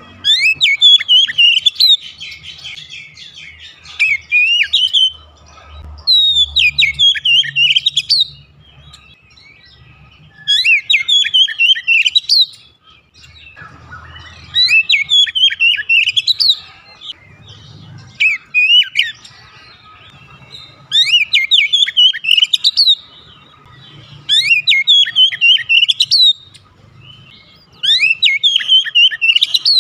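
Oriental magpie-robin (kacer) singing: loud phrases of quick, high whistled notes sliding up and down, about nine phrases each a second or two long, separated by short pauses.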